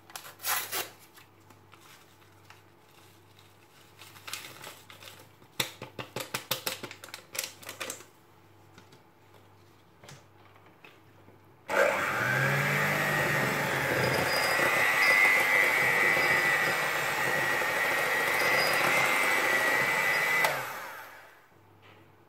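Electric hand mixer starting abruptly about halfway in and running steadily with a high whine through cake batter for about nine seconds, then winding down. Before it, scattered light clicks and taps.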